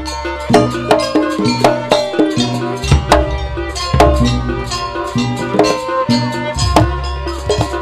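Live Javanese jaranan percussion ensemble playing a fast, dense beat of drum and metal strikes, with deep booming notes that start again about three seconds in and near the end.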